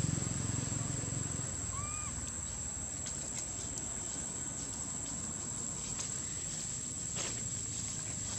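Forest ambience dominated by a steady high-pitched insect drone, with one short chirping call about two seconds in and a few faint rustles or ticks in the leaf litter.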